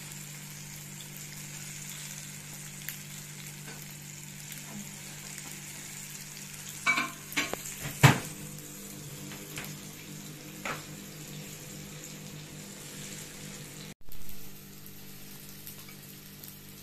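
Banana fritter and banana spring roll frying in oil in a nonstick pan, a steady sizzle, with a few sharp knocks about halfway through, the loudest around eight seconds in.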